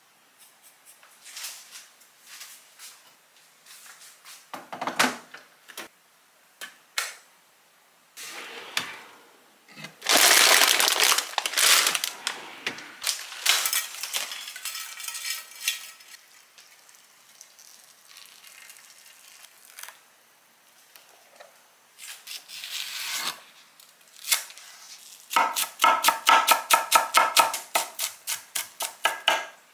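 Kitchen food-prep sounds of utensils on a board and dish: scattered knocks and clinks, a loud noisy stretch lasting about three seconds from about ten seconds in, and near the end a quick run of rhythmic clinks with a ringing tone.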